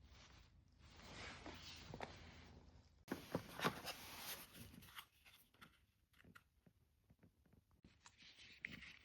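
Packaging being handled: rustling with light clicks and taps, loudest about three to four seconds in.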